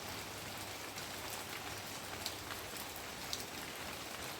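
Steady rain falling, with a few sharper taps of single drops landing now and then.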